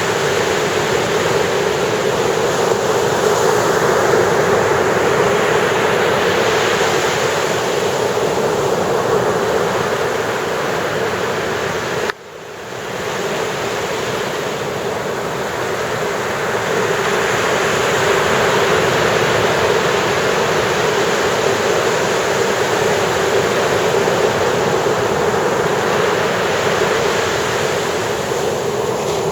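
Ocean surf breaking and washing ashore: a steady rush of water that swells and eases slowly. It cuts out briefly about twelve seconds in and comes back within a second or two.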